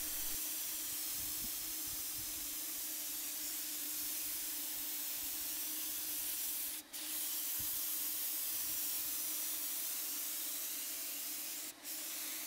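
Apollo Pro 5 LE HVLP turbine sprayer spraying BIN primer: a steady hiss of air and atomised primer from the gun, with a steady low hum underneath. The hiss breaks off briefly twice, about seven seconds in and near the end.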